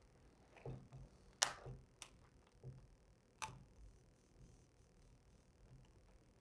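Faint clicks and crackles of 3M 1080 vinyl wrap film being handled and lifted back from a grill bar: about five sharp ticks in the first three and a half seconds.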